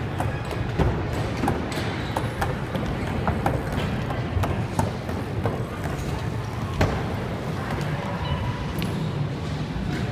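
Busy indoor skatepark ambience: background music and voices, with scattered sharp clacks and knocks of scooters on ramps and ledges.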